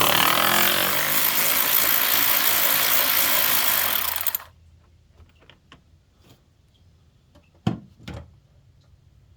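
Power tool running steadily for about four and a half seconds while backing out a bolt on the radiator guard, then cutting off suddenly. Two short knocks follow near the end.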